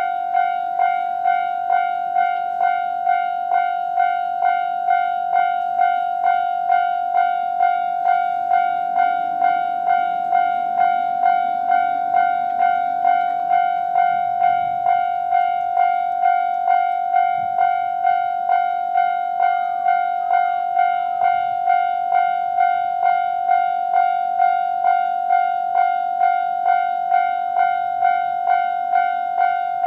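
Japanese railway level-crossing alarm ringing its standard electronic 'kan-kan' tone, just under two strikes a second, steady throughout. A JR 211-series electric train rumbles through underneath it from about eight to fifteen seconds in, quieter than the alarm.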